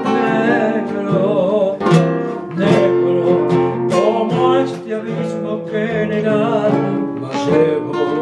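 Two classical guitars playing a zamba together, plucked notes and chords sounding continuously.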